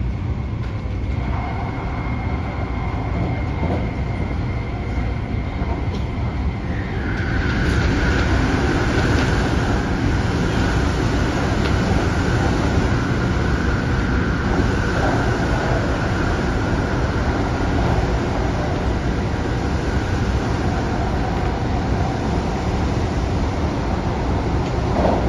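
Adtranz-CAF electric multiple unit under way: steady rumble of the running train with a high electric whine from the traction equipment. About seven seconds in, the whine steps down in pitch and the whole sound gets louder.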